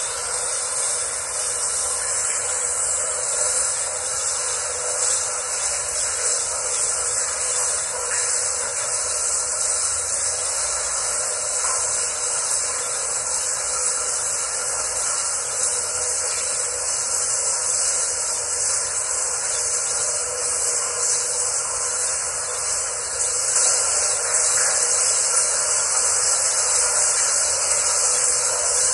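Steady, even hiss throughout, a little louder from about 23 seconds in, with no speech.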